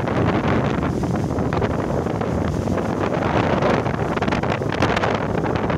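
Strong storm wind buffeting the microphone in a steady rumble, with surf washing on the beach underneath.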